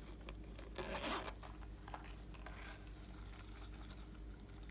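Glossy slime topped with foam beads squishing and crackling as a toy is pressed down into it. The crackle is loudest for about half a second around one second in, followed by a few faint clicks.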